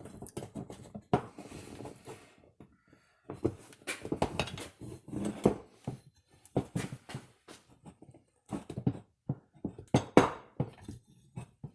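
Irregular metal clunks and knocks as a cold chainsaw crankshaft is pushed and worked into its heated crankcase half, sticking partway in.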